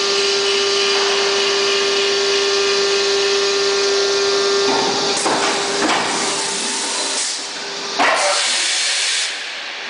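Injection moulding machine cycling a plastic bucket mould: a steady whine with hiss while the mould is held shut. It drops away about five seconds in with a few clunks as the mould opens, then a sharp knock and loud hiss near eight seconds.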